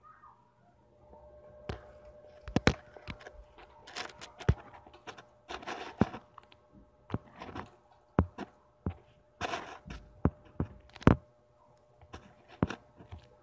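Irregular knocks, taps and thuds, some sharp and loud, with brief rustling between them.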